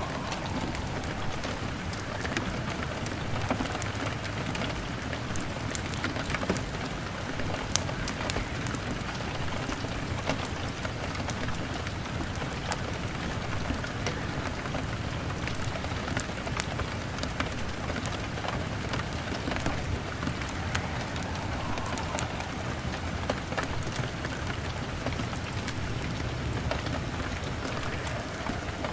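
Rain falling steadily on a window, mixed with a crackling log fire: a continuous hiss scattered with many short, sharp clicks.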